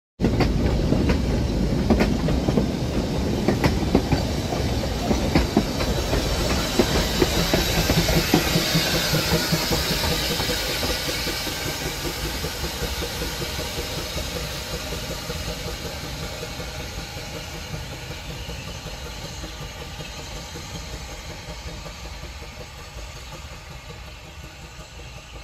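Narrow-gauge Baldwin 4-6-0 tank locomotive No. 590 running under steam, its exhaust beats and wheels clattering over the rail joints. It is loud at first and fades steadily as it moves away.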